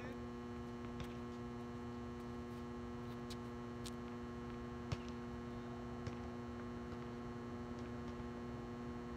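Steady electrical mains hum, typical of the floodlights over the court, with a few faint scattered clicks and one sharper knock about five seconds in.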